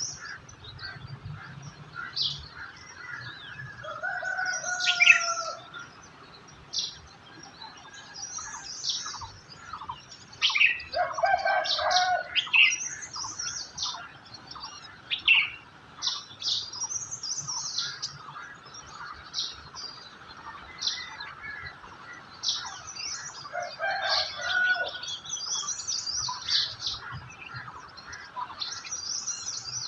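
Several songbirds chirping, a dense run of short, high chirps and trills, with a few lower, longer calls about five seconds in, around eleven to twelve seconds, and about twenty-four seconds in.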